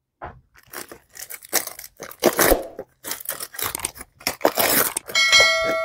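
Cardboard perfume box being opened and the bottle's plastic wrapping pulled off, with irregular rustling, crinkling and tearing. Near the end a single ringing chime sounds and fades.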